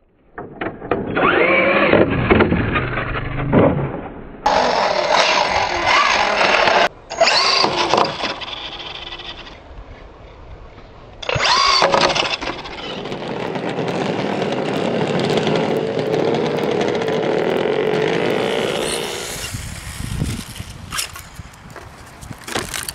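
Brushless electric motors of radio-controlled cars (a Losi Mini SCT and a Hobao Hyper 7) whining, rising and falling in pitch as they speed up and slow down, in several short bursts that cut off abruptly.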